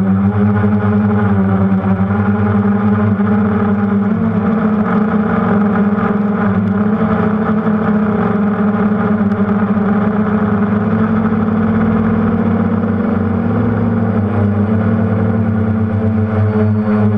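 F330 quadcopter's electric motors and propellers running steadily, heard from the camera on the frame, with small shifts in pitch as the motor speeds change.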